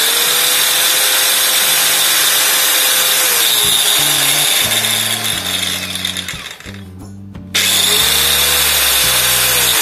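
Bosch GWS 060 angle grinder running free with a cutting disc fitted, not cutting: a steady motor hiss with a whine. It cuts out for about half a second around seven seconds in, then starts again and whines back up.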